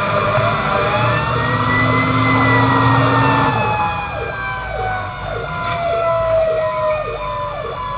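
Fire apparatus sirens sounding together: a wailing siren rises and falls slowly while another tone slides steadily downward, and from about four seconds in a rapid yelping siren joins them, over a low truck-engine rumble.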